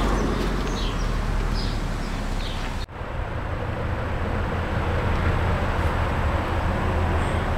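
Outdoor ambience: a steady low rumble of wind on the microphone over a noisy hiss, with a run of short high chirps during the first three seconds. The sound drops out for an instant at an edit about three seconds in, then the rumble carries on.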